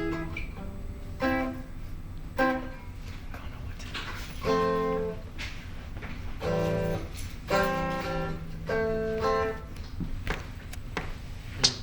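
Guitar being plucked: separate chords and single notes a second or two apart, each ringing briefly before the next.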